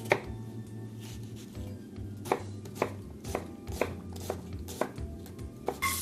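Kitchen knife dicing an onion on a cutting board: one chop, a pause of about two seconds, then sharp chops about twice a second.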